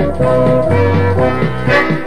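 Polka music led by accordion over a steady bass-and-chord beat.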